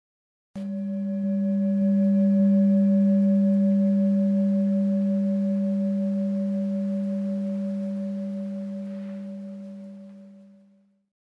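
Tibetan singing bowl struck once with its mallet. It gives a low, steady ringing tone with a fainter higher overtone above it, which dies away over about ten seconds.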